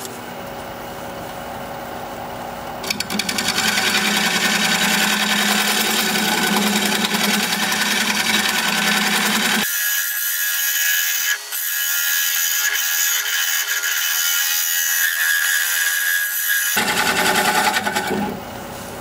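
Wood lathe spinning a live oak bowl while a hand-held turning tool cuts into the hard wood, chips flying: a steady cutting noise that starts about three seconds in and stops shortly before the end.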